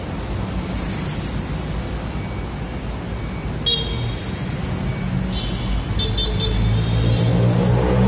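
Street traffic: a steady rumble of passing vehicles. A car horn gives a short toot about four seconds in and several quick beeps a little later. A vehicle engine grows louder near the end.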